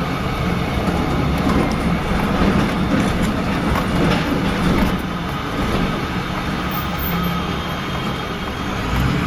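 Steady engine and tyre noise heard from inside a moving vehicle's cabin as it drives through a narrow rock tunnel and out onto the road, with a low hum underneath.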